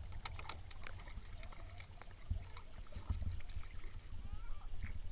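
Wind rumbling on the microphone, with scattered clicks and knocks on a canoe and small splashes as a hooked speckled trout thrashes at the surface beside the boat.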